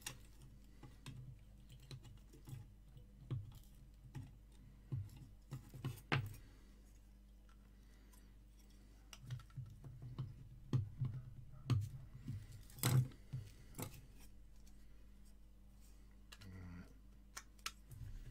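Large side cutters snipping the excess component leads off the underside of a freshly soldered circuit board: a string of short, sharp clicks at irregular intervals. A quiet spell comes in the middle, then a quicker run of snips about ten seconds in.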